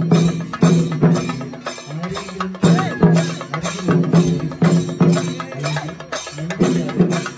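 Chenda drum ensemble playing singari melam: dense rapid drumming with heavy accented strokes about twice a second, over a sustained pitched tone.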